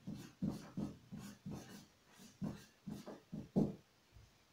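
Marker pen writing on a whiteboard: a run of short separate strokes, about three a second, as letters are written.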